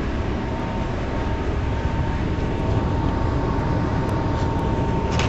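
Ferry under way, a steady low rumble and rushing noise with a faint steady whine running through it.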